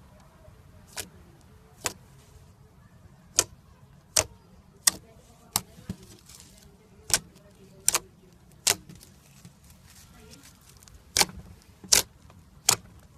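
Slime being pressed and squished by fingers, giving sharp popping clicks at irregular intervals, about one a second, with a short pause about two-thirds of the way through.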